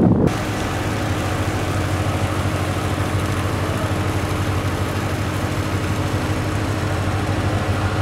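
Ferry's diesel engine running with a steady low drone. Wind buffeting the microphone cuts off abruptly a moment in.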